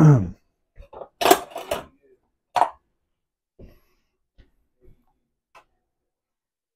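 A serving utensil scraping and clinking against a pan as cooked vegetables are lifted out: a cluster of clatters and scrapes in the first couple of seconds, then a few soft taps.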